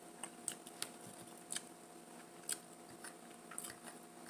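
Scattered soft clicks and light taps of eating: a fork working grits in a dish, with faint mouth sounds, over a low steady hum.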